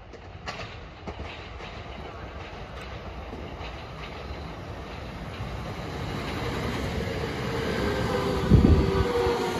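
Suburban electric train approaching and running in alongside the platform, its rail noise building steadily. The wheels click over rail joints, a whine joins as the cars draw level, and a low thump comes near the end.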